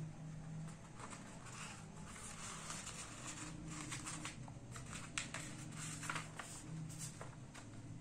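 A sheet of origami paper rustling and crackling as hands fold it corner to corner and smooth it flat, with many short, sharp crackles throughout.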